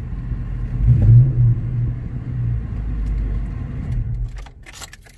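Ford Mustang GT's 5.0-litre V8 revved briefly about a second in, then running with a low rumble that fades near the end, followed by a few clicks.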